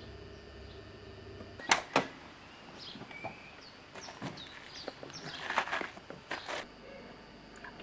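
Two sharp knocks close together about two seconds in, then faint bird chirps, and a spell of rustling and small knocks a little later as people climb out of a car with its doors open.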